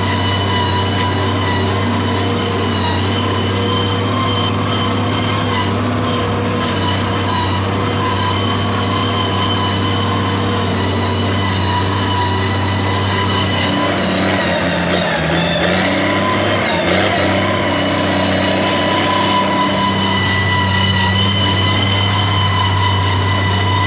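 Valtra 1780 tractor's diesel engine running steadily under load, pulling a heavy disc harrow, with a steady high whine over the engine note. About two thirds of the way through, the engine note sags briefly and recovers.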